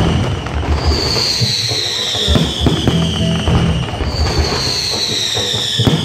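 Fireworks display going off close by: many bursts and crackles in quick succession, with no break.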